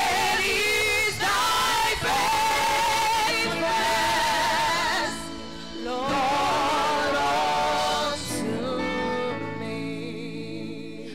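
Gospel praise team singing a slow worship song through microphones, the voices held with wide vibrato over sustained accompaniment chords. The singing breaks off briefly about five seconds in and resumes, then stops near the end, leaving the held chords fading.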